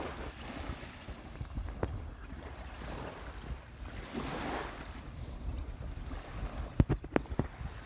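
Sea waves washing on the shore, swelling twice, with wind buffeting the microphone. A few sharp knocks near the end.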